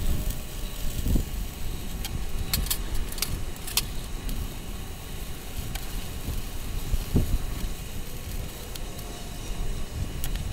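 Stick (MMA) welding arc from a 3.2 mm 6013 rod on a WS-250 inverter welder, crackling and sizzling over a low rumble. The display is set to 125 A, but the owner reckons it is really delivering about 85–90 A.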